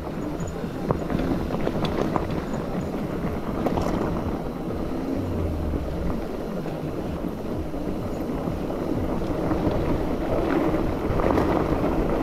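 Electric mountain bike running fast downhill over loose gravel and stones: steady tyre noise with wind buffeting the microphone, broken by scattered knocks from stones and the bike jolting over bumps.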